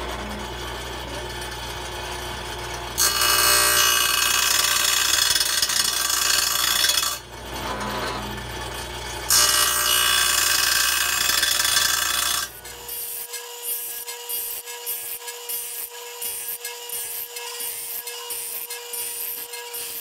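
Belsaw 10452 saw sharpener's grinding wheel running, with two long, loud passes of grinding as the wheel is drawn into the steel teeth of a 32-inch circular saw blade, beveling the fronts of alternate teeth. About two-thirds through, the low motor hum drops out and a steady whine with about three ticks a second takes over.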